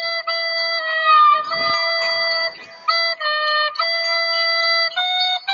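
A simple melody played on a flute-like wind instrument, mostly long held notes with short breaks between them. The pitch moves a little and steps up near the end.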